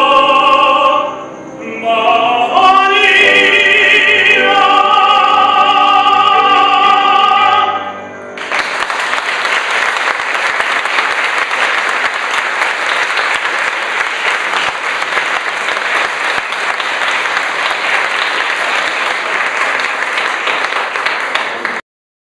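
Operatic tenor voice singing the last phrase of a song, ending on a long held note. About eight seconds in, an audience breaks into applause, which goes on steadily until the sound cuts off abruptly just before the end.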